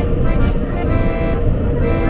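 Background music of held instrumental chords that change every second or so, over a steady low rumble.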